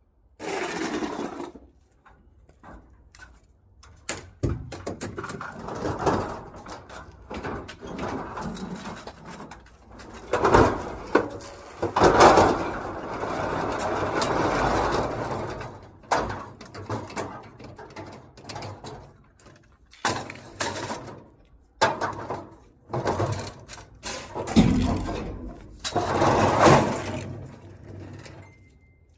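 Irregular knocks, clatters and scraping of hard objects being handled, with swells of rustling noise between them.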